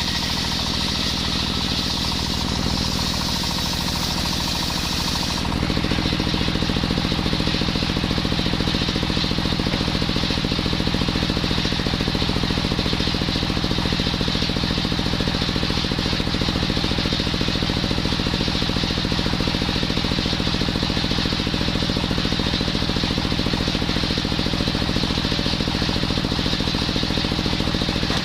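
Engine-driven circular saw running steadily through coconut wood. For the first five seconds or so a high hiss of the blade cutting sits over the engine, then stops suddenly, and the engine runs on alone, a little louder.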